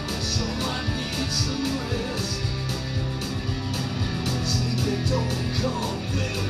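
Two electric guitars playing an instrumental passage of a rock song through amplifiers, over a steady beat.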